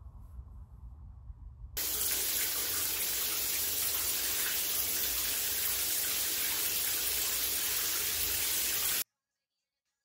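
Overhead rain shower head running: a steady hiss of falling water that starts abruptly about two seconds in, after a faint low hum, and cuts off suddenly about a second before the end.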